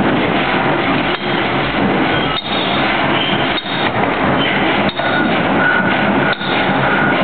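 Pneumatic forging hammer striking a red-hot workpiece: a loud, dense, continuous din with a brief dip about every second and a quarter.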